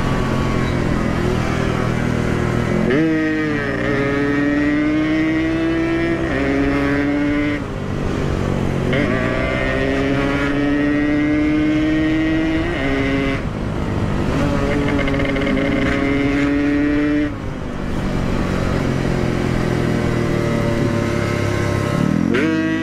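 Two-stroke Yamaha RX-King motorcycle at full throttle through an aftermarket exhaust, its engine pitch climbing and then dropping back several times as it is run up through the gears.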